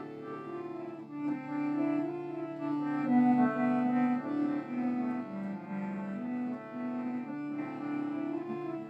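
Slow instrumental music: a melody of long held notes stepping up and down over a steady low drone.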